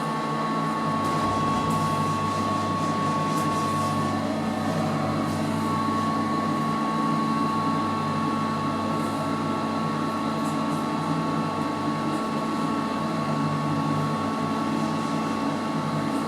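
Glass passenger lift car travelling up between floors: a steady mechanical hum with a few constant tones, one high tone dropping out briefly about four seconds in.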